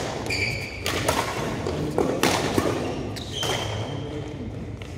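Badminton rally: several sharp racket strikes on the shuttlecock spread through the few seconds, with brief high shoe squeaks on the court floor.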